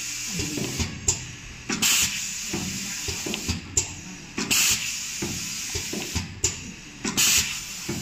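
Semi-automatic pneumatic flag labeler for cables cycling three times, about every two and a half seconds: each time a sharp click, then a short hiss of exhausting compressed air, with light handling noise from the wires between cycles.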